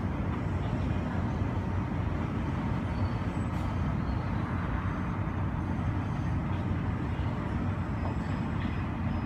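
Steady low rumble of airport apron noise, heard through the terminal window glass, with no distinct events.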